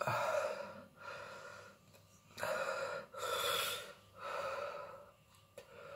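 A man breathing hard through his open mouth in a run of sharp gasps, about one breath a second, reacting to the burn of a whole super-hot 7 Pot Douglah chilli he has just eaten.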